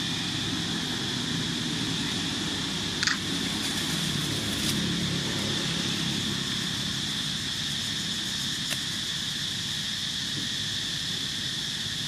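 Steady outdoor ambience: a continuous high-pitched insect drone over a low rumble. A short, sharp sound comes about three seconds in, and a faint click near nine seconds.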